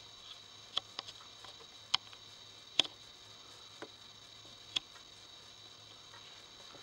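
A handful of sharp, irregularly spaced clicks, about seven in the first five seconds, over a faint steady hiss and low hum.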